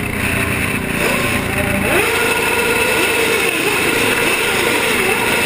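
Motorcycle engines running and revving. From about two seconds in, the pitch rises and falls repeatedly.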